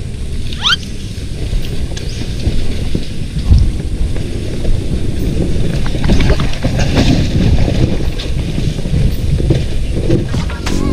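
Off-road dirt bike ridden along a rough trail: an uneven low rumble with scattered knocks and wind buffeting the microphone. A short rising squeak comes about a second in.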